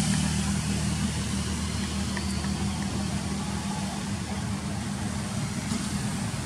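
A vehicle engine idling steadily: an even low hum under a constant outdoor hiss.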